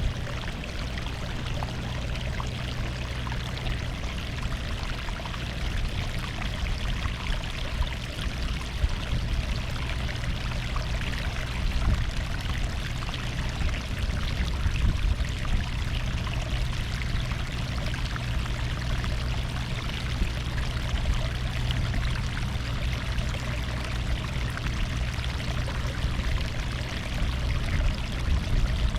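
Seawater washing steadily against the shore: a continuous rushing with a deep low rumble beneath it and small irregular surges.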